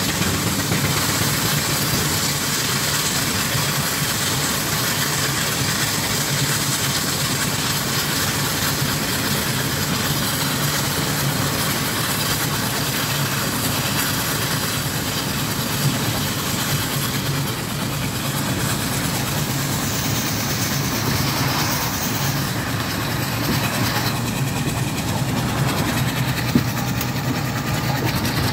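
Burrell steam traction engine running as it travels along a road: a steady, even mechanical noise throughout, with a single sharp click near the end.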